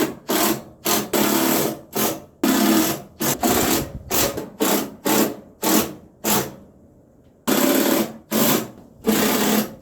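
A handheld power tool is triggered in short, irregular bursts, with a brief pause a little past the middle.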